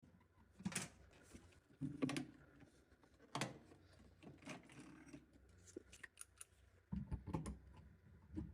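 Scattered clicks and knocks from hands working on a wall-hung toilet, with a quicker run of knocks near the end.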